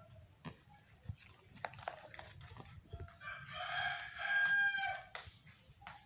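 A rooster crowing once, one long call of about two seconds starting about three seconds in. Before it come light clicks and crinkles of a plastic sauce sachet and a paper box being handled.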